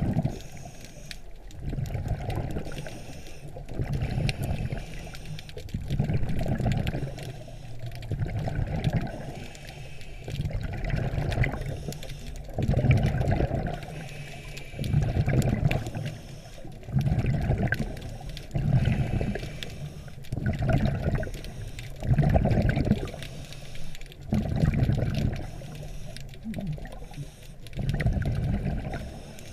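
Scuba diver breathing through a regulator underwater, the exhaled bubbles rumbling out in bursts about every two seconds, heard through a GoPro Hero 3's underwater housing.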